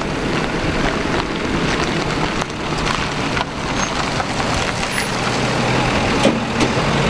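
A motor vehicle running, a steady low engine hum under noise with scattered small knocks and rattles.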